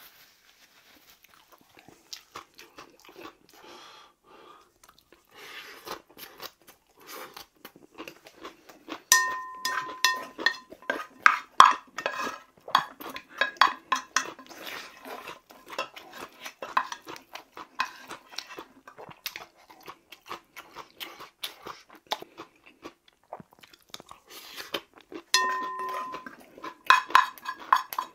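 Close-up chewing and crunching of a mouthful. From about nine seconds in, a spoon scrapes and knocks inside a rice cooker's inner pot, scooping up bibimbap. The pot rings briefly at the first knocks, and the scraping starts again with another ring near the end.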